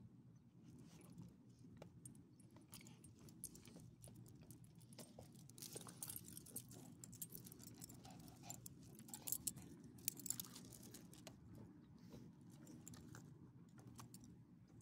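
Faint jingling of dog tags and light scuffing on gravel from small leashed dogs sniffing about, with a few sharper clicks about two-thirds of the way through.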